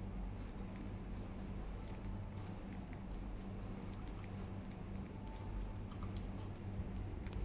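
Budgies nibbling lettuce: irregular small beak clicks and crunches, over a steady low hum.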